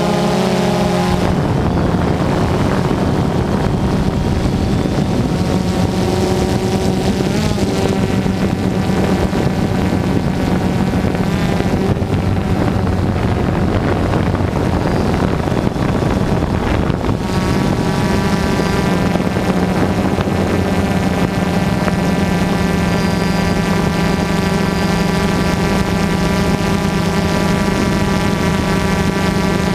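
Motors and propellers of a small radio-controlled aircraft, heard from its onboard camera: a steady droning whine with wind rushing over the microphone. The pitch shifts about a second in, wavers as the throttle changes through the middle, and holds steady for the last part.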